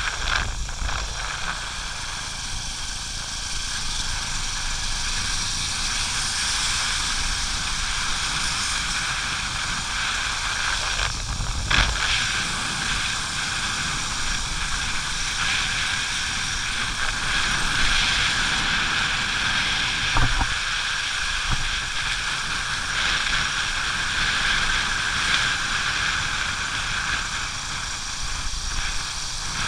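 Steady rush of wind and road noise from a motorcycle riding along a rain-wet road, with a couple of knocks about twelve and twenty seconds in.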